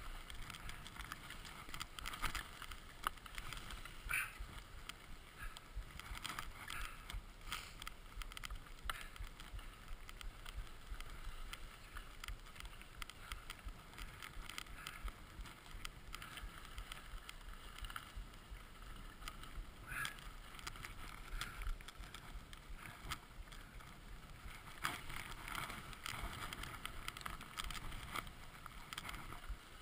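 Skis swishing and hissing through deep powder snow in a steady run of turns, with irregular louder swishes and a low wind rumble underneath.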